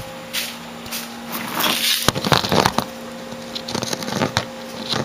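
Irregular rustling and scuffling with sharp clicks, densest about two to three seconds in, over a steady low hum.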